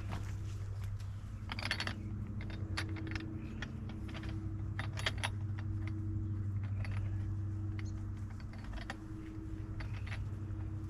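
Allis-Chalmers tractor engine idling steadily, with repeated light metallic clinks and jingles of cable and rigging hardware being handled.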